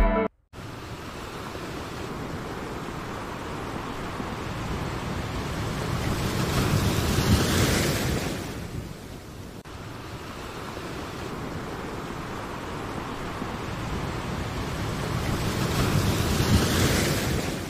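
A rushing noise like surf or wind that swells and fades twice, peaking about seven seconds in and again near the end.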